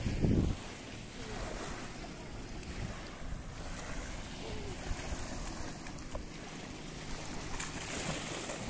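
Small waves washing on a sandy shore, with wind buffeting the microphone in a strong gust at the very start. Near the end, a dog splashing as it runs out into shallow water.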